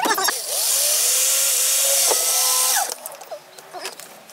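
Corded electric drill running steadily with a whine for about two and a half seconds as it drills into the van floor, then winding down and stopping. A few light clicks and taps follow.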